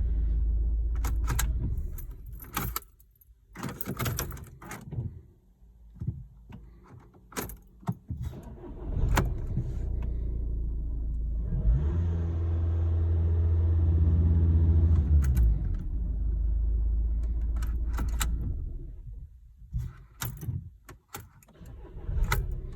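VW Passat engine running, then switched off and restarted, with keys jangling in the ignition and sharp clicks while it is off. The ignition is being cycled so the engine management light clears after an EGR valve repair.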